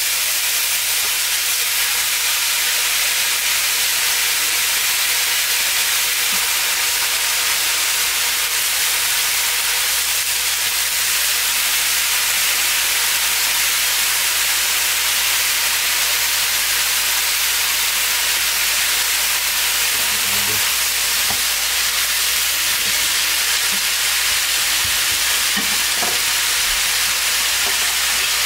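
Sliced beef stir-frying in hot oil with onion and tomato in a pan, giving a steady sizzle that does not let up.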